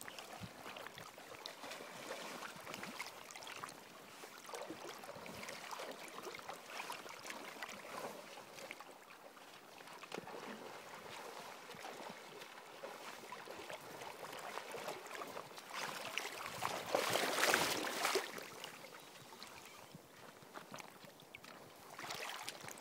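Water splashing and swirling in a shallow river as a hooked salmon thrashes at the surface near a wading angler. A louder burst comes about three-quarters of the way through.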